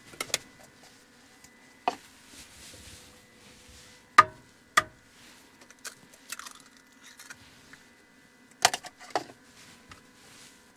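An egg cracked on the rim of a mixing bowl: two sharp taps about four seconds in, the loudest sounds, among scattered small clicks and knocks of a food tub and bowl being handled on a kitchen counter. A steady low hum runs underneath.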